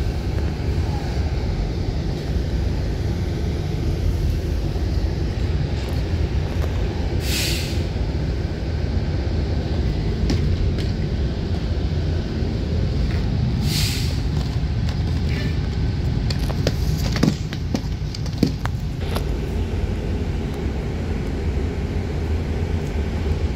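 City bus engine running with a steady low drone, heard from inside the passenger cabin while riding. Two short air-brake hisses come about seven and fourteen seconds in, and a few light knocks come later.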